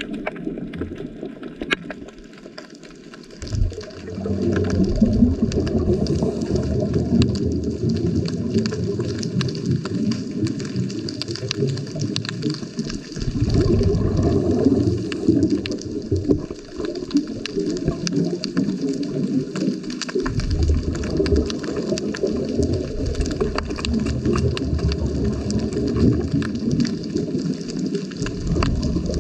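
Underwater sound of scuba exhaust bubbles rumbling past the camera housing in long surges of several seconds, with quieter gaps between them, over a constant faint crackle of clicks.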